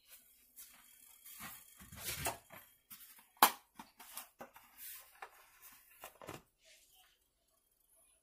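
Kitchen items being handled: scattered light clicks, knocks and brief rustles, the sharpest click about three and a half seconds in.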